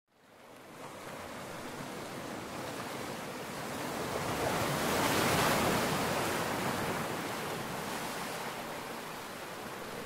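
Ocean surf: a steady rush of waves washing in that fades in, swells to its loudest about halfway through and eases off again.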